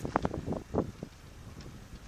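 Wind buffeting the microphone in irregular gusts, stronger in the first second and easing after, over the low running of a Fiat Panda 4x4 crawling through snow.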